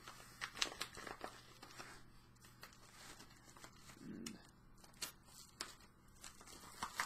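Razor blade slitting open a mailed package, with faint scattered scrapes, clicks and tearing of the packaging.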